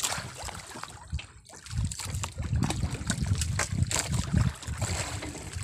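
Water splashing and trickling beside a small boat as a line is hauled in by hand, with scattered irregular knocks and bumps against the hull.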